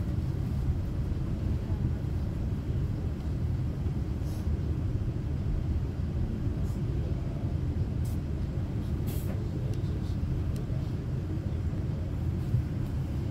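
Steady low rumble of an LNR Class 350 electric multiple unit heard from inside the passenger cabin as the train runs slowly along a station platform, with a few faint short ticks.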